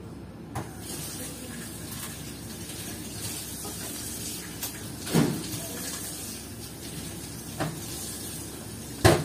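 Kitchen tap running into a sink while dishes are rinsed: a steady hiss of water with a few knocks and clinks of crockery, and a sudden clatter at the very end.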